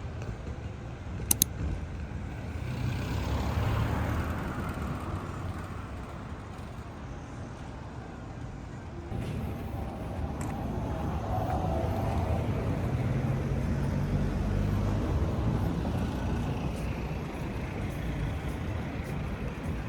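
Steady low rumble of vehicle noise, with a sharp click about a second in.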